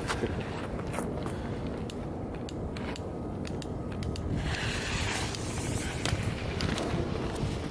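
Steady low wind rumble on the microphone with a few faint scattered ticks, and a brief hiss a little past halfway.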